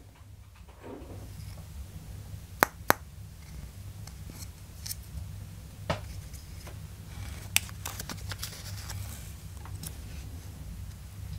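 Handling noise from a paper template and a small wooden block: a few sharp clicks, two close together about two and a half seconds in and two more later, with light rustling and rubbing between them.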